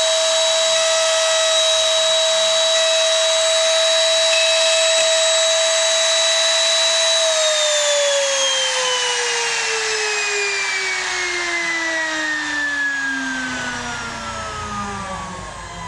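High-speed motor of a small CNC machine running with a steady high whine, then switched off about seven seconds in and spinning down, its pitch falling steadily and the sound fading.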